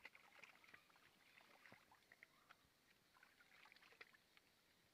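Faint, irregular splashing and dribbling of water as hands are rinsed.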